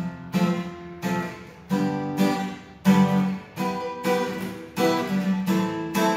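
Intro music of acoustic guitar strumming chords in a steady rhythm, about three strums every two seconds.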